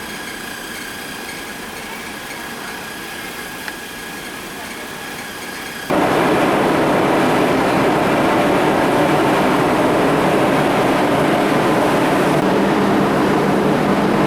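Steady engine hum with a faint whine, then an abrupt cut about six seconds in to much louder, steady engine and rushing travel noise.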